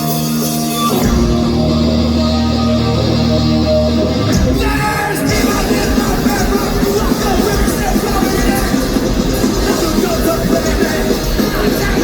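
Punk rock band playing live and loud: a held guitar chord with a bass note coming in, then the full band with drums crashing in about four seconds in.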